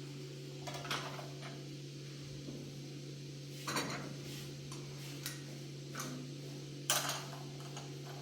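A few short clinks and clatters of hard objects being handled, the clearest three about a second in, near the middle and near the end, over a steady low hum.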